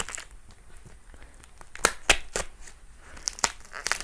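Parcel packaging being cut and torn open with a knife: crinkling and tearing of the wrapping with sharp crackles, a few about two seconds in and a cluster near the end.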